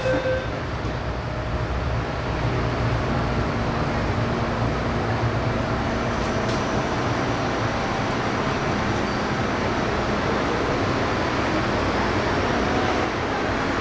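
Cabin noise of an MTR M-Train pulling out of the station into the tunnel: a steady rumble of wheels and running gear with air-conditioning hiss.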